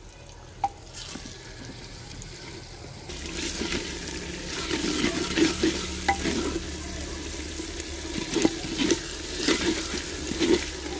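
Wooden ladle stirring and scraping a masala frying in oil in a clay pot, with a steady sizzle that gets louder about three seconds in. Irregular knocks and scrapes of the ladle against the pot's sides and bottom run through the second half. This is the stage where the masala is fried with its freshly added salt, chilli and turmeric powder.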